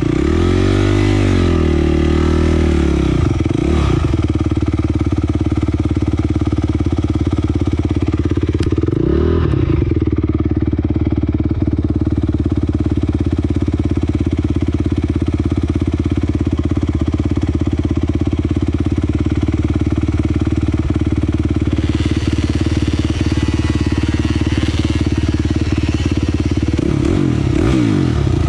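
Dirt bike engine idling steadily, revved up and back down briefly a few times: near the start, about nine seconds in, and near the end.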